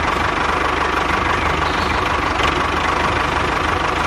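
Small engine idling steadily, with a fast, even beat.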